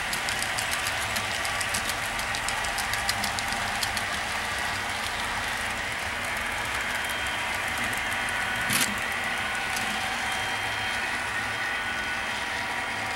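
HO scale model freight train of hopper cars rolling along the layout track: a steady running noise of metal wheels on rails, with rapid clicking over the rail joints in the first few seconds and one sharper click about nine seconds in.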